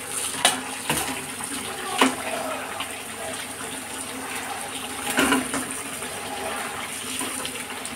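Fish curry simmering in a metal kadai on a gas burner, a steady bubbling hiss. A few sharp knocks of a spatula against the pan come about half a second, two seconds and five seconds in.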